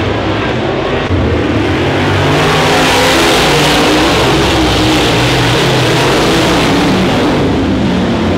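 A field of dirt late model race cars running hard around a dirt oval: several V8 engines at once, their pitches rising and falling as the drivers get on and off the throttle. The sound grows louder and hissier through the middle as the cars come by, and eases off near the end.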